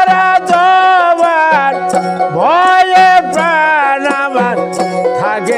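Bengali baul folk music: a plucked dotara with a small hand frame drum and hand-clapping keeping a steady beat, under a man's voice sliding through long sung notes.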